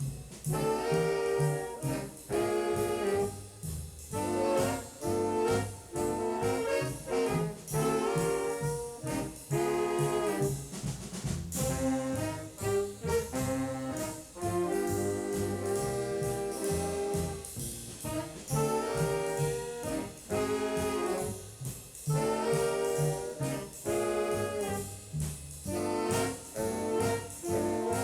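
A junior high school stage band playing big-band jazz from a 1969 LP: trumpets, trombones and saxophones in short, punchy ensemble chords over bass and drums.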